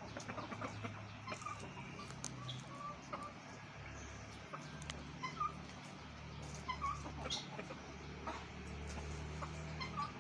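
Chickens clucking, with short scattered calls and a few clicks over a steady low rumble.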